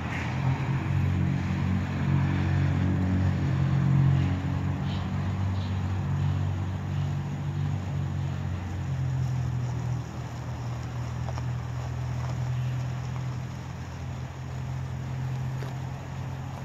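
Diesel locomotive engine of an approaching train, a steady low rumble that eases a little about ten seconds in.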